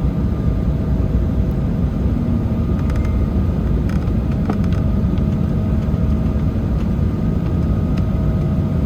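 Inside the cabin of an Embraer 190 on the ground after landing: a steady low rumble from its General Electric CF34 turbofans and the airframe, with a faint steady whine above it.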